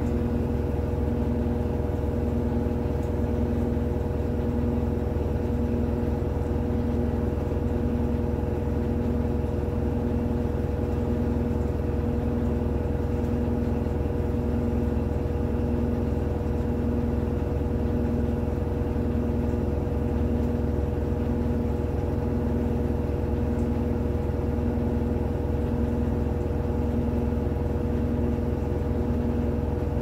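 Electrolux top-load washing machine in its spin cycle, spin-drying sneakers: a steady motor and drum hum with a low tone that pulses evenly about every second and a half.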